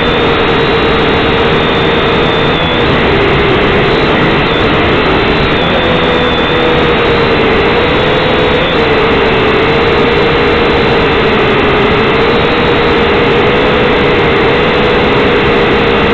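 Syma X5C quadcopter's small electric motors and propellers buzzing loudly and steadily in flight, the hum wavering slightly up and down in pitch as the drone manoeuvres, picked up by its own onboard camera.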